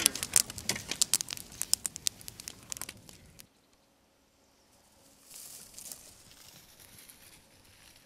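Fire crackling with many sharp, irregular pops as canvases and paper burn, cutting off suddenly about three and a half seconds in; a faint hiss follows.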